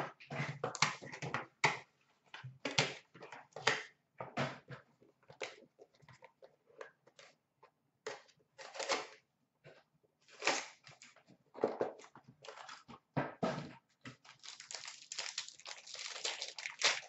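Trading cards and foil pack wrappers being handled: irregular scratchy rustles, slides and taps, coming thicker near the end.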